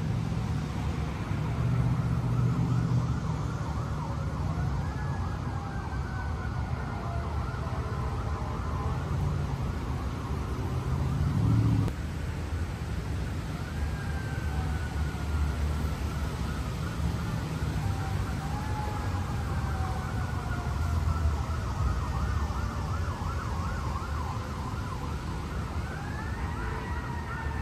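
Emergency vehicle sirens wailing and yelping, their pitch wavering quickly while sliding slowly down and rising again several times, over a steady low rumble.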